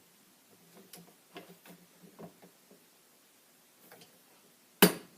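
Torque wrench on a rifle barrel nut: faint scattered ticks as it is worked, then one loud sharp click near the end as it reaches the set 50 foot-pounds.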